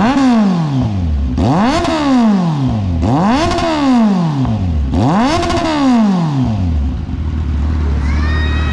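Kawasaki Z900 inline-four revved four times through its freshly fitted Orion 61 mm shorty exhaust and 61 mm mid-link. Each throttle blip rises quickly in pitch and falls away slowly, and the engine settles to a steady idle about seven seconds in.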